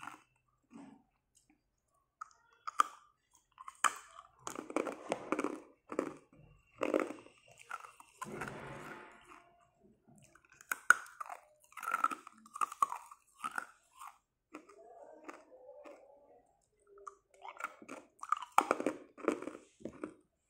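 Ice cube sticks bitten and chewed: a run of short, sharp crunches as the ice breaks between the teeth, coming in clusters with brief pauses.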